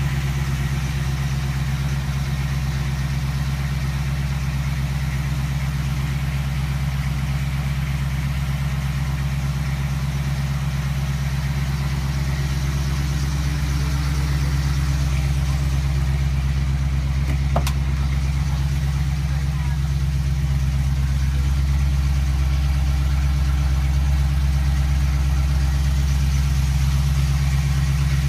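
1977 Ford F-150's engine idling steadily, a low, even hum that grows a little louder about halfway through. A single sharp click sounds about two-thirds of the way in.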